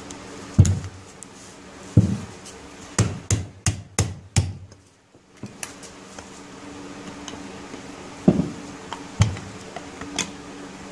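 Sharp metal knocks and taps as the crankcase of a 1975 Johnson 4 HP two-stroke outboard powerhead is worked apart by hand and with tools: single knocks early on, a quick run of five about three seconds in, then three more near the end. A steady machine hum comes in about halfway through.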